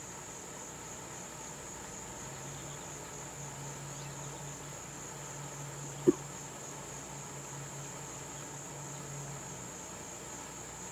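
Steady, high-pitched chorus of insects such as crickets, with a low hum from about two seconds in until near the end, and a single sharp knock about six seconds in.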